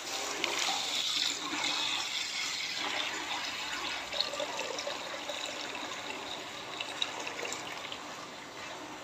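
Water pouring in a steady stream into a steel pot of whole masoor lentils, splashing and gurgling as the pot fills, gradually growing quieter.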